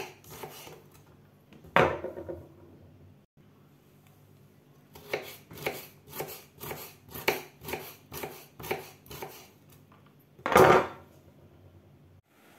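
Kitchen knife chopping a carrot on a bamboo cutting board: a few single cuts, then a steady run of about a dozen cuts at roughly three a second, and near the end one louder, longer knock.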